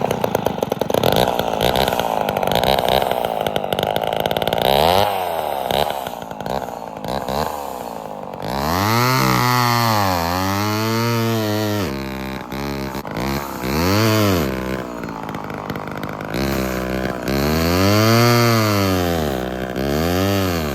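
Ported Homelite two-stroke chainsaw running: high revs for the first several seconds, then the engine speed climbing and falling again several times. The owner says it bogs out every time it hits, and is unsure whether fuel, spark, the porting or chain tension is to blame.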